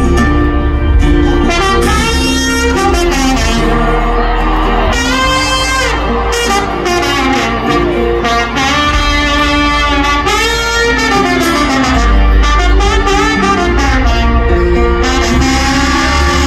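Live rock band with a horn section playing an instrumental passage: trombone, saxophone and trumpet lines sliding and bending over acoustic and electric guitars, bass and drums.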